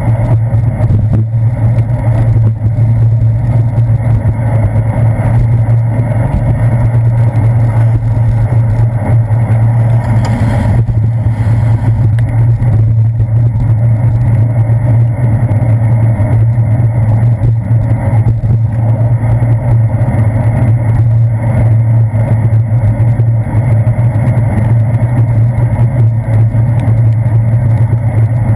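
Steady, muffled rumble of wind and road vibration picked up by a handlebar-mounted GoPro action camera on a bicycle riding along wet city streets, with car traffic close by.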